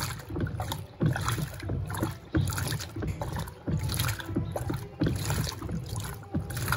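Electrolux Turbo Compacta 7 kg top-loading washing machine agitating a load of rugs in water. It goes in rhythmic back-and-forth sloshing swishes about once a second, each with a low thump.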